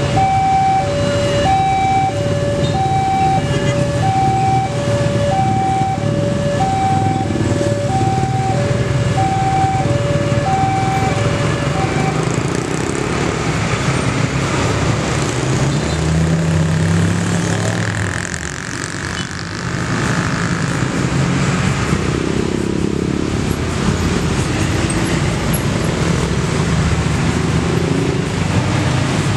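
Level-crossing warning alarm sounding an electronic two-tone ding-dong, high and low notes alternating about twice a second, which stops about twelve seconds in. Engines and tyres of road traffic, including motorcycles, a bus and a truck, run past underneath it throughout.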